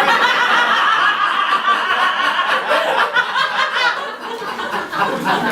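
Live audience laughing, loudest at first and easing off after about four seconds.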